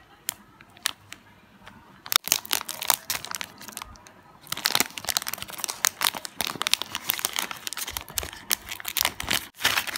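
Plastic ice cream sandwich wrapper crinkling and tearing as it is pulled open by hand. The crackling is sparse at first, with a sharp click about two seconds in, then comes in dense bursts through most of the rest.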